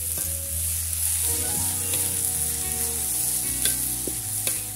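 Chopped cassava leaves sizzling in hot oil as they are stir-fried in a metal wok, with a few sharp clinks of the metal spoon against the pan.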